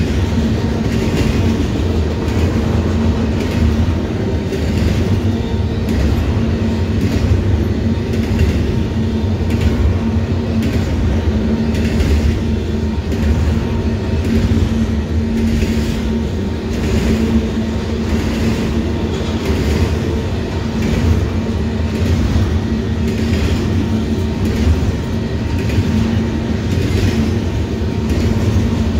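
Fast-moving intermodal freight train rolling past, a continuous heavy rumble with the wheels clicking over rail joints at a regular rhythm.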